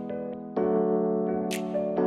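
Background music: held keyboard chords that change to a new chord about half a second in, with a brief high hiss about one and a half seconds in.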